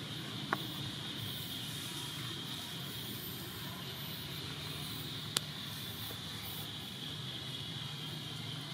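Steady outdoor background: an even, high drone like insects over a low rumble like distant traffic, with two short sharp clicks, one about half a second in and another just past halfway. No monkey calls are heard.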